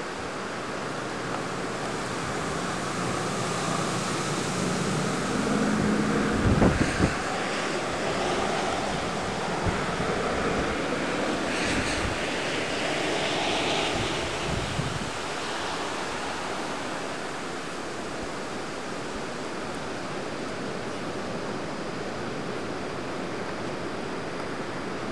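Tropical-storm wind gusting through leafy trees: a steady rushing that swells for several seconds and then eases, with a few low thumps on the microphone about six to seven seconds in.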